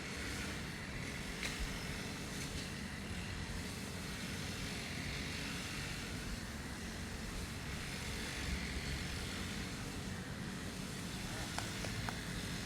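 Motorised grass cutter's engine running steadily, a continuous drone.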